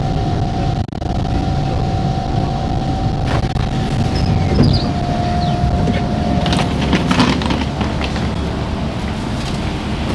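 Singapore MRT train at rest in the platform: a steady whine from the train runs until about six and a half seconds in, then the doors slide open with a cluster of knocks and clatter as passengers step off.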